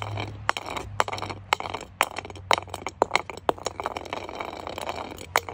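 Glass jar rolling over rough asphalt, giving a string of irregular sharp clicks and clinks.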